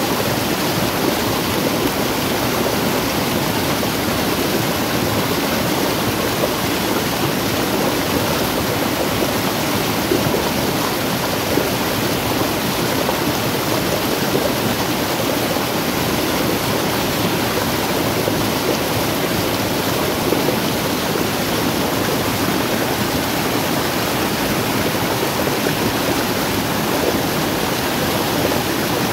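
Muddy stream water rushing steadily down a small waterfall over rock and tree roots.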